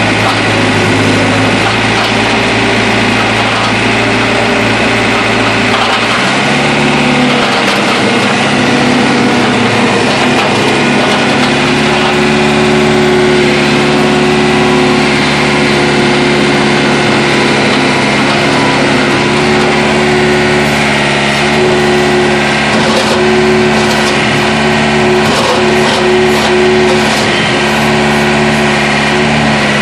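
New Holland LT190B compact track loader's diesel engine idling, then throttled up about six seconds in and running steadily at higher revs.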